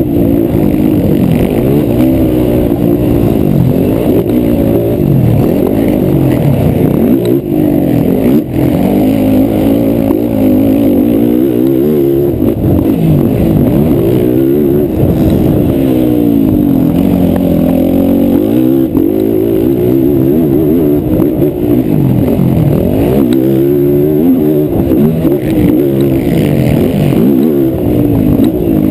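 Racing quad (ATV) engine running hard, its pitch climbing and dropping again and again as the rider accelerates, shifts and backs off.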